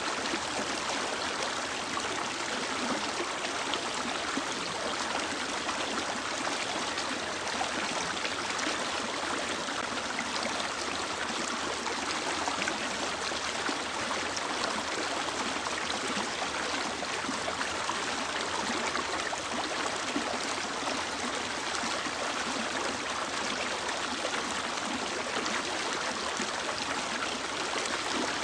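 Mountain river or stream flowing steadily over rocks, an even rushing of water.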